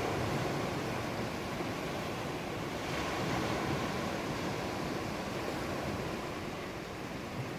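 Steady rushing noise of the sea and wind, swelling slightly about three seconds in, with no thunder.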